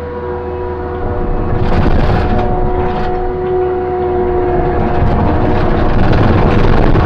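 A vehicle hauling a load of hay bales: a motor running with a steady whine, then a louder rush of driving noise with rattles and knocks building from about a second in.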